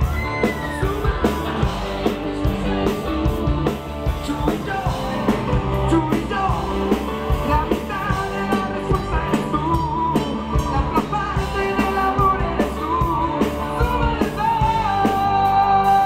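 Live rock band with a male lead singer, backed by drums. Near the end the singer holds one long high note.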